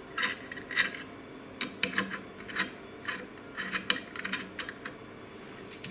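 Irregular light clicks and clinks of small metal parts of a homemade sanding jig being handled and pushed into place while a clamping plate and sandpaper are fitted.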